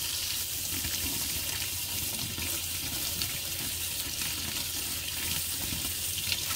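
Kitchen faucet running, its stream splashing over a carbon water filter cartridge held in the hand and into a stainless steel sink as the cartridge is rinsed.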